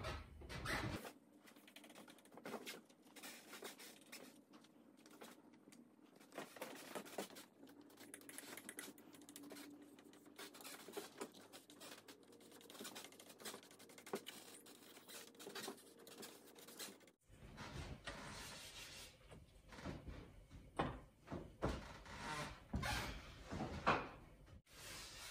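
Faint scratching and rustling of washi paper being rubbed and smoothed by hand and with a flat wooden stick on a shoji door. A run of louder scratchy strokes comes in the last several seconds.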